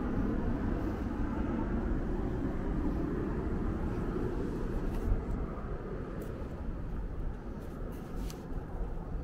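Road traffic noise from a nearby street, a steady rushing with no distinct engine note. It is fuller for the first few seconds and eases off after about five seconds.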